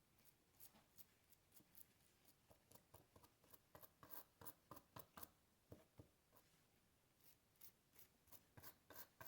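Faint, irregular scrubbing strokes, about two or three a second, as a soldered board is cleaned with a brush and alcohol.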